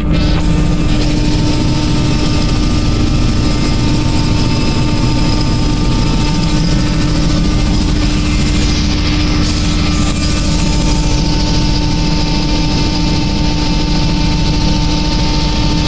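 Robinson R66 helicopter in cruise flight, heard from inside the cabin: the Rolls-Royce RR300 turboshaft engine and rotor make a loud, steady din, a deep rumble with a constant hum over it.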